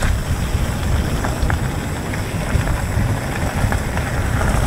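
Mountain bike rolling fast on wet gravel: a steady rumble and crunch of tyres on loose stones with wind buffeting the camera's microphone, and a few sharp ticks of gravel.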